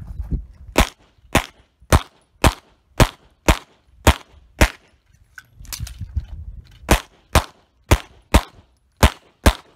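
Rapid pistol fire from a 9mm CZ SP-01: about sixteen shots at roughly two a second, in two strings of about eight with a short pause between them.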